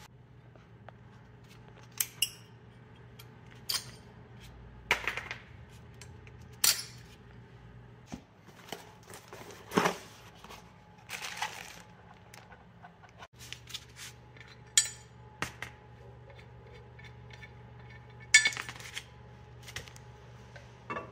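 Brake parts being handled: scattered metallic clinks and taps as pads, bolts and the caliper bracket are picked up and set down. Brief rustling comes from a new brake pad box and its plastic-wrapped hardware being opened.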